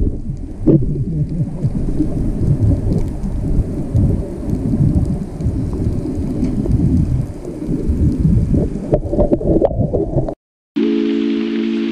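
Wind buffeting the camera's microphone, a loud uneven low rumble that cuts off abruptly about ten seconds in. Background music with sustained chords starts just after.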